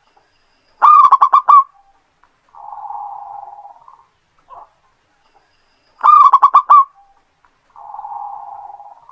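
Zebra dove (perkutut) cooing twice. Each song opens with a quick run of five or six loud, clipped notes, followed a second later by a softer, longer rolling coo.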